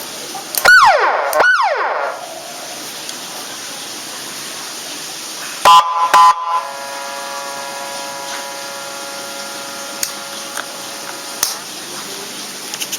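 Nine-tone electronic siren module sounding through a 10-watt horn speaker: two quick up-and-down whoop chirps, then a few seconds later two short honking blasts, followed by a quieter steady horn tone that holds for about five seconds and stops with a click.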